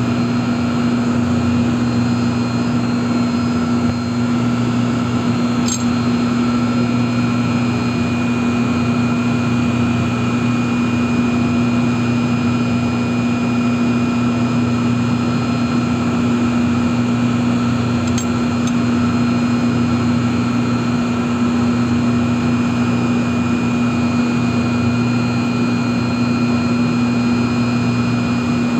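Large chiller plant machinery running with a loud, steady low hum that holds one pitch. Two faint ticks stand out, about six seconds in and again about eighteen seconds in.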